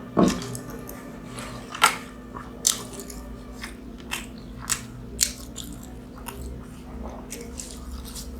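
Close-up chewing and biting of mughlai paratha, the egg-stuffed fried flatbread: irregular crunchy clicks and wet smacks, the sharpest about a quarter second in and just before two seconds.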